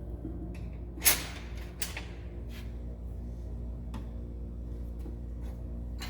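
Metal combination wrenches clacking as they are set one at a time into a wrench organizer in a toolbox drawer: a handful of separate sharp clicks, the loudest about a second in, over a steady low hum.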